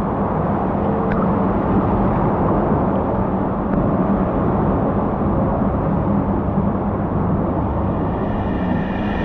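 Water rushing and a rider sliding down an enclosed tube water slide: a steady, rumbling wash of noise. Near the end a higher hiss comes in.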